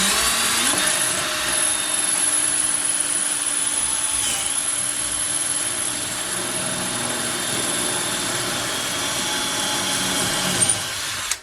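Electric drill boring an anchor hole through wall tile, running steadily with a high whine for about eleven seconds, then stopping suddenly at the end.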